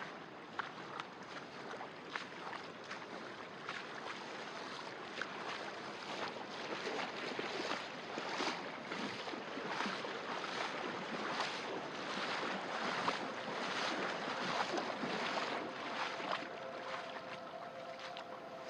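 Running creek water with regular footsteps, about one every 0.8 seconds, crunching on the rocky trail.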